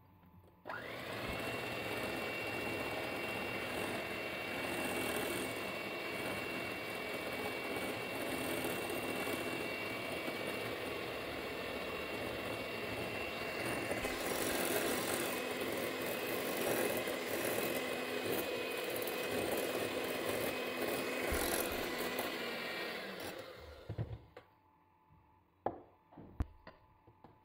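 Moulinex electric hand mixer whisking heavy cream in a glass bowl, whipping it until it thickens. The motor starts about a second in, runs steadily with a high whine whose note shifts about halfway through, then switches off near the end, followed by a few knocks.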